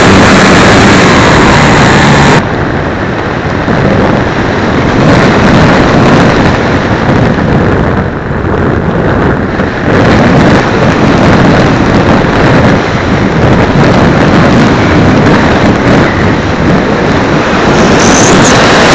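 Loud, rough wind noise buffeting the microphone of a camera mounted on a Multiplex Easy Glider foam RC glider in flight. A steady hum beneath it stops about two seconds in.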